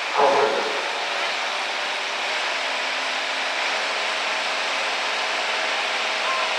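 International Harvester pulling tractor's engine running steadily while hitched to the sled. A short, loud sound falling in pitch comes right at the start.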